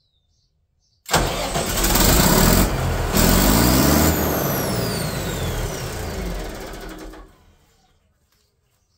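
The large diesel engine of a 110 kVA Katolight generator set fires up suddenly about a second in, rising in pitch as it comes up to speed, then runs loudly. It dies away near the end.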